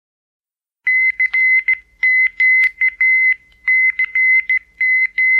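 Morse code sent as a keyed tone of about 2 kHz, short and long beeps starting about a second in, spelling out CQ, the amateur radio general call.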